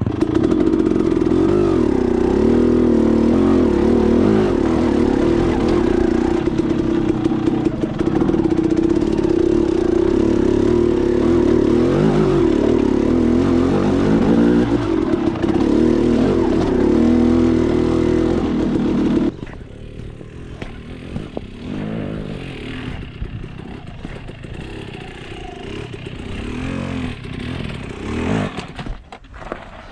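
Dirt bike engine running steadily and loudly, cutting off abruptly about two-thirds of the way through, after which a quieter, uneven engine sound continues.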